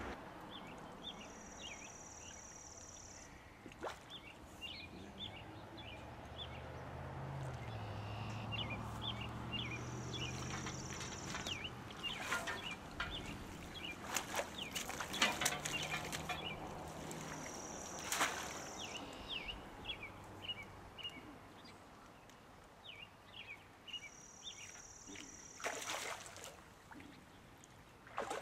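Birds singing over and over: a high buzzy trill about every seven seconds among quick chirps. Sharp splashes and rod-and-reel handling clicks cluster in the middle and again near the end as a hooked carp is fought at the bank. A low engine drone runs through the first half.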